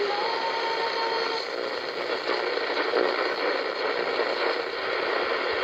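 Static hiss from a 1984 Sanyo clock radio's speaker as its tuning dial is turned down through the AM band between stations. A faint steady whistle sounds for about the first second and a half, then only the hiss remains.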